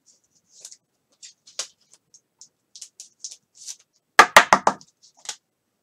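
Hands handling trading cards and packs: light scattered clicks and rustles, then a quick run of four or five loud taps about four seconds in, and one more tap near the end.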